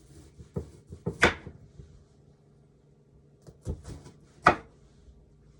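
Kitchen knife chopping through a watermelon cucumber onto a cutting board: a few sharp knocks, with two hard chops about three seconds apart, one about a second in and one near the end.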